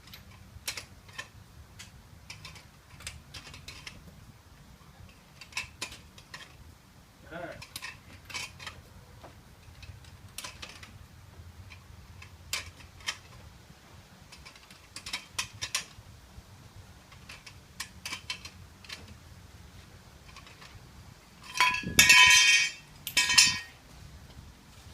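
Metal hand tools clinking and tapping in scattered small clicks while the wheel bolts are worked on. About 22 seconds in come two loud ringing metal clanks, about a second and a half apart.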